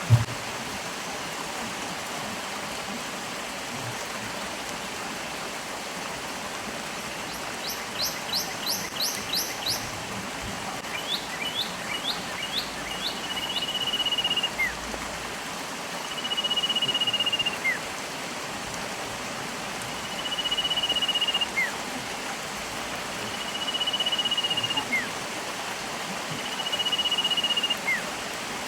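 Steady rushing of a stream with birds calling over it. A brief knock comes at the very start, then a quick run of high chirps about eight seconds in, then a long steady whistle every three to four seconds, each ending in a short falling note.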